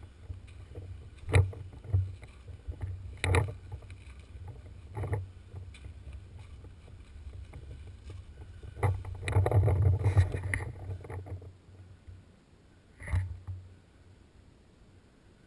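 Handling noise of a paintball player creeping through dry brush: rustling and rubbing of gear against the camera over a low rumble, with several sharp knocks and a louder stretch of rustling about nine to eleven seconds in.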